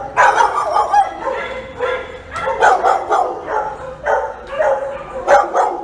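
Big dogs barking over and over, about two or three barks a second without a break.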